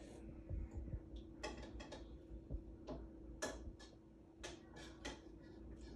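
A child eating crunchy French Toast Crunch cereal from a bowl with a spoon: irregular light clicks and crunches, some in quick clusters, over a faint steady hum.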